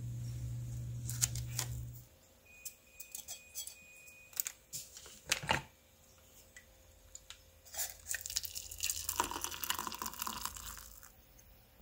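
Hot water poured from a kettle into a stainless-steel mug, a splashing pour lasting about three seconds near the end. Before it, scattered light clicks and taps as the mug and coffee packet are handled.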